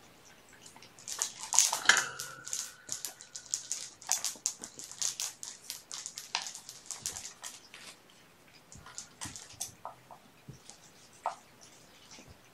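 A young kitten gives one drawn-out mewing cry, amid a busy run of scratchy clicking and rustling from the first couple of seconds that thins out near the end.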